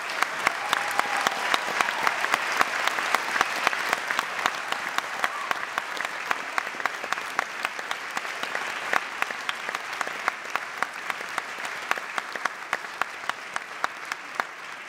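Audience applauding steadily, with sharp individual claps close to the microphone standing out of the crowd's clapping; it eases off slightly near the end.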